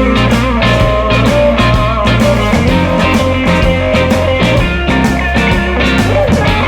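Live electric blues-rock band playing an instrumental passage: electric guitar lines over bass guitar and a steady drum-kit beat, with no singing.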